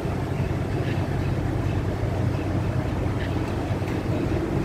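Three Norfolk Southern diesel-electric road locomotives (an ES40DC, an AC44C6M and an SD70ACe) running under load as they pull a freight train away from a stop: a steady, loud low engine drone.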